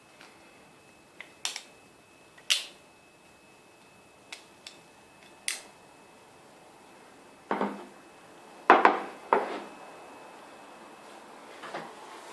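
Mechanical clicks and knocks of an antique percussion firearm being handled: a string of short, sharp metal clicks, then a few heavier knocks a little past the middle, the loudest of them close together.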